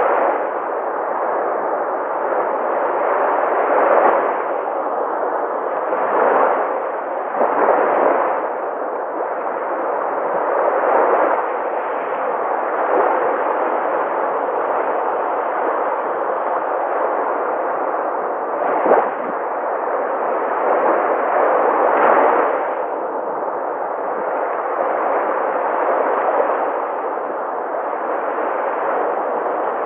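Sea waves breaking and washing in: a continuous rush of surf that swells and eases every few seconds, with a sharper crash about nineteen seconds in.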